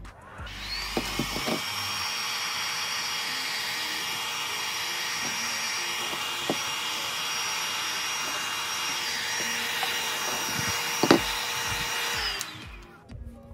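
Heat gun running to shrink plastic wrap over a round plastic container: a steady rush of blown air with a fan whine. It spins up in the first second and winds down near the end. A few light knocks come through it, the loudest about eleven seconds in.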